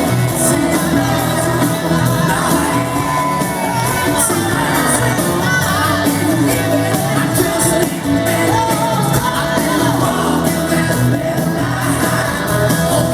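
A live rock band playing loud, with wordless singing or a wavering lead line over it and a few shouts.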